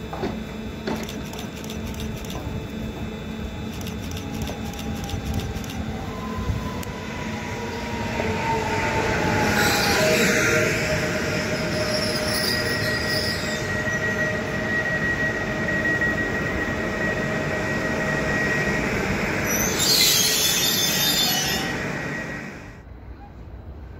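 Pesa Elf EN76 electric multiple unit pulling into the station and slowing. Its drive whines, first falling in pitch and then holding steady, over wheel and rail noise that grows louder as it nears. Short bursts of high hiss come about ten seconds in and again near the end, and then the noise drops away as the train comes past and slows.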